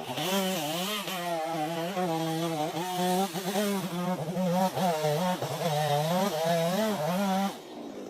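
Chainsaw cutting through a log, its engine note dipping and recovering about once a second as the chain takes load. It stops near the end.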